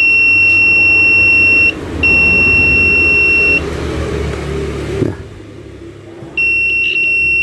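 Multimeter continuity beeper giving a steady high beep while its probes touch the phone's flex cable. The beep breaks briefly just before two seconds in, stops about three and a half seconds in, and starts again near the end, with low handling noise and a knock in the gap. The beep shows continuity where there should be none: a short between a pin of the flex cable and ground.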